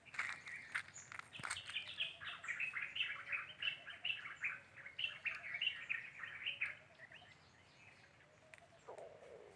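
Small birds chirping in a fast, dense chatter of short high calls, which thins out and fades after about seven seconds. A couple of footsteps on dry ground sound in the first second and a half.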